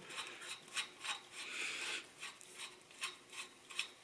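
A metal thread protector being unscrewed by hand from a rifle barrel's muzzle threads: a faint metal-on-metal rasping with a string of small irregular ticks.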